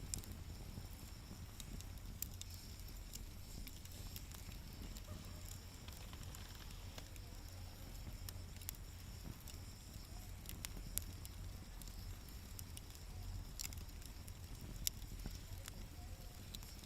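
Wood fire crackling with scattered small ticks and a few sharper pops, over a steady low rumble.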